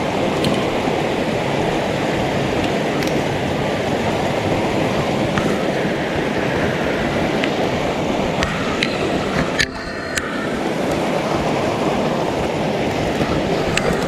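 Steady rushing of a mountain stream, an even wash of water noise with a few light clicks and snaps over it. The rush briefly dips about ten seconds in.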